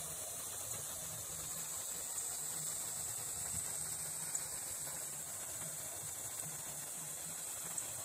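Water from a village irrigation outlet falling to the ground, a steady rushing hiss.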